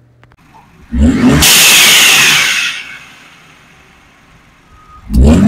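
Ford Bronco's turbocharged engine blipped up from idle, then a loud hiss of air that fades over about a second as the blow-off valve adapter vents the turbo's boost on throttle lift. A second rev starts near the end.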